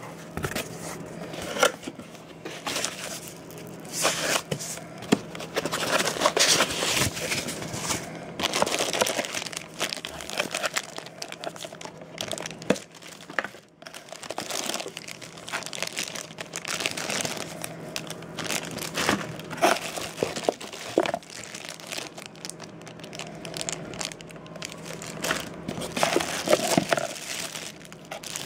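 Plastic packaging bags crinkling and rustling irregularly as they are handled and pulled out of a cardboard box, with sharp crackles and occasional bumps of the cardboard.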